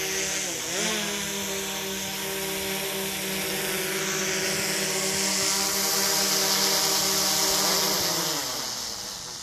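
Quadcopter propellers of a DJI Mavic 2 Zoom drone hovering, a steady buzzing whine. Its pitch dips briefly just under a second in, and it falls away over the last second or so as the motors slow.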